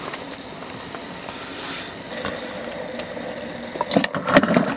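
Steady rushing of a gas canister stove burning under a covered pot of water. Near the end, the metal lid is lifted off the pot and clinks against it and the chopsticks.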